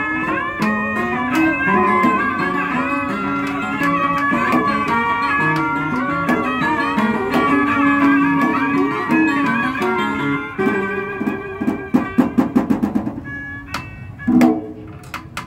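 Cao Đài ceremonial instrumental ensemble (nhạc lễ) playing, led by plucked strings including an acoustic guitar, with many bending, sliding notes. About ten seconds in, the playing thins to a fast run of repeated plucked notes that fades, then a few single plucks near the end.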